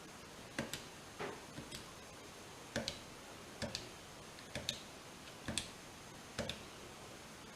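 Light plastic clicks from the bomb's keypad buttons, pressed one at a time about once a second, each press giving a quick double click.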